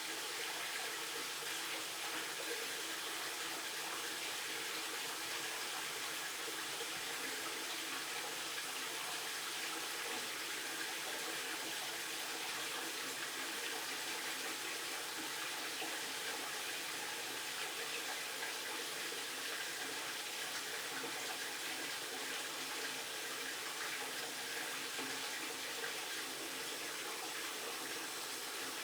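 Water running steadily from a faucet, an even hiss that does not change.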